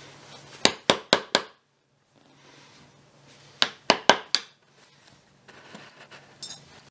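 Claw hammer tapping the end of a flat-headed screwdriver to drive it under an upholstery nail in a wooden chair seat: two quick runs of four sharp taps, about three seconds apart. A short metallic ring follows near the end.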